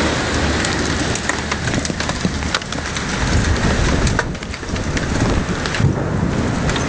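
Heavy rain pelting down on hard surfaces, with many sharp ticks of drops striking and a low rumble underneath.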